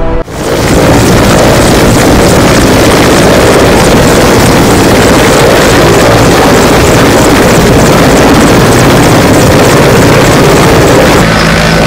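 Mi-17 transport helicopter's twin turbine engines and rotor running close by: a loud, steady noise, shifting near the end to a slightly quieter sound with a low steady hum.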